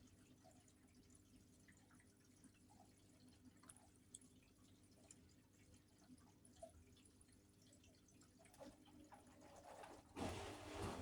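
Hotpoint Aquarius washing machine pausing mid-cycle: faint drips and trickles of water in the drum over a low steady hum. Near the end a louder rushing noise starts up.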